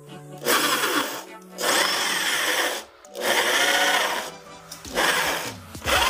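Electric hand drill boring small holes through a stainless steel basin, in about five short bursts that each speed up and stop.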